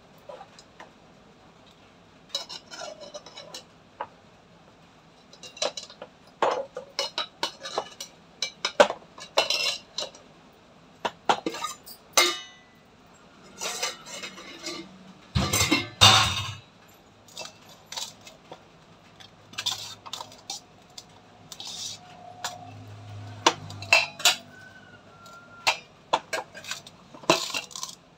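Stainless steel pots, bowls and lids clinking and knocking as they are handled, in irregular spells of sharp clinks, with the loudest clatter about sixteen seconds in.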